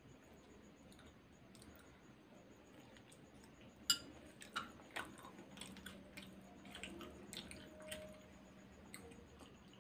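Faint chewing, then a sharp clink about four seconds in as a metal fork is set down on a ceramic plate, followed by a few lighter clicks and taps.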